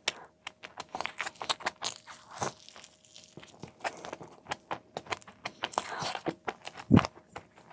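Close-miked eating of a chicken burger: crisp crunching bites and chewing, a rapid run of sharp crackles, with one louder, heavier crunch near the end.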